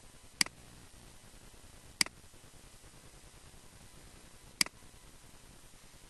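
Computer mouse button clicking three times, well spaced, over a faint steady hiss.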